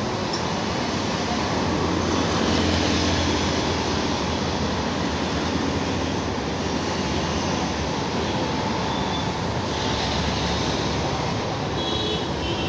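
Steady road traffic from a busy multi-lane city road: cars, auto-rickshaws and motorcycles running past in a continuous hum, with faint horn-like tones near the end.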